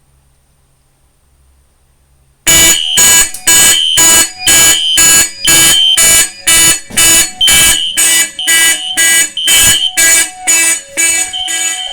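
Fire alarm horns (System Sensor P1224MC horn strobe and Space Age AV32 horn) going off about two and a half seconds in, sounding loud pulsed blasts at about two a second. This is the panel's alarm signal, set off by a Fire-Lite SD365 smoke detector tripped with a test magnet.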